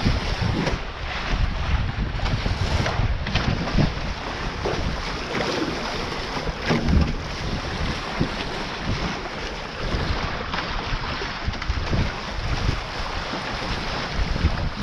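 Wind buffeting the microphone over the rush of water past the hull of a Taipan 5.7 catamaran sailing fast, at about 18–19 km/h, with irregular slaps and splashes of spray against the hull.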